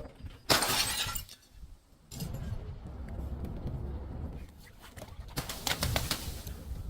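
Glass shattering about half a second in, followed by a long stretch of crunching and crackling as the broken pieces are crushed, with a denser burst of cracking late on.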